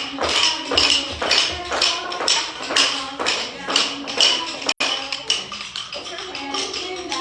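Recorded children's song playing, with a steady beat of shaken percussion like shakers or a tambourine.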